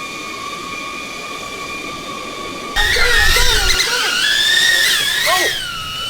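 Propellers of a DJI Avata FPV drone whining, a steady high hum that jumps higher and louder about three seconds in, then wavers in pitch as the throttle changes.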